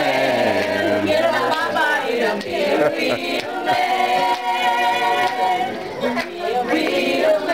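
A group of people singing together, unaccompanied voices holding long notes.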